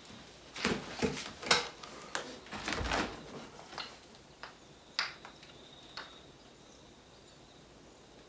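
Knocks and clatters from a home cable-pulley setup with stacked weight plates and a rope handle, with one deeper thud, as a set of rope cable pulls ends and the lifter gets up off the incline bench; a few scattered clicks follow.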